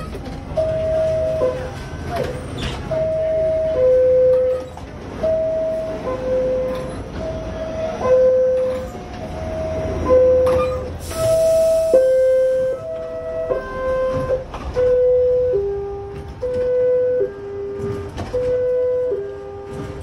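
New York City subway car door-closing chimes: a two-note falling ding-dong, repeated every one and a half to two seconds, the pitch of the pair shifting somewhat from chime to chime, over the low rumble of the car. A burst of hiss comes about halfway through.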